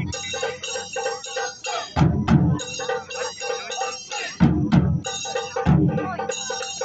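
Taiko drum ensemble playing live: three heavy, deep drum strikes about two, four and a half, and six seconds in, with quicker, lighter drum hits and ringing higher tones between them.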